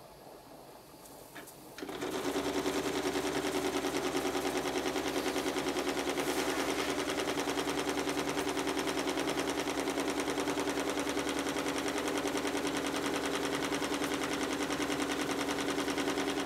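Stuart Models three-cylinder triple expansion steam engine running fast on live steam: a rapid, even mechanical beat that sets in about two seconds in and holds steady.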